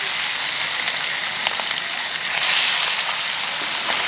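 Olive barb fish frying in hot oil in an iron karahi: a steady sizzle with scattered sharp crackles, swelling briefly about two and a half seconds in.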